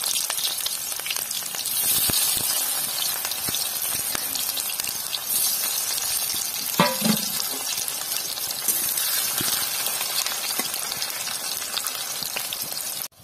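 Sliced onions frying in hot mustard oil in an aluminium kadai: a steady sizzle with scattered crackles, the first stage of making beresta (browned fried onions). A brief knock about seven seconds in.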